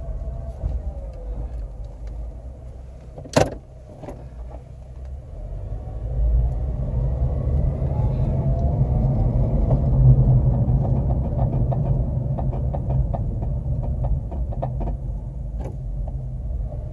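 A 2009 Honda Civic driving, with a steady low rumble that gets louder about six seconds in. There is one sharp click a little after three seconds and scattered faint ticks later.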